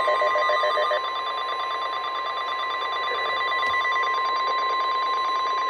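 NOAA Weather Radio 1050 Hz warning alert tone, one steady high beep-like tone held throughout, marking the start of a warning broadcast. A rapidly pulsing second signal is mixed underneath it.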